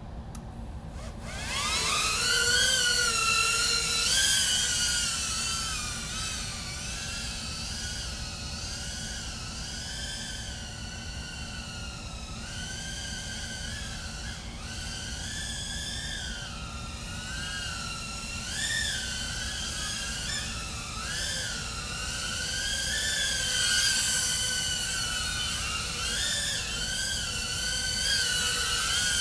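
Brushless motors of a Tank95 2-inch FPV quadcopter spinning up about a second in. They then give a high whine that rises and falls with the throttle as the drone flies.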